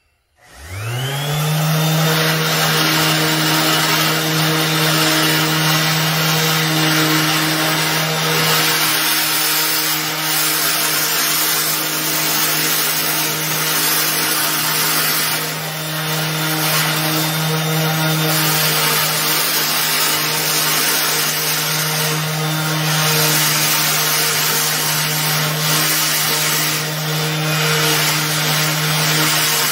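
Orbital sander fitted with a buffing pad spinning up with a quick rising whine about half a second in, then running steadily as it polishes an aluminium grille with metal polish, the pad rubbing over the metal.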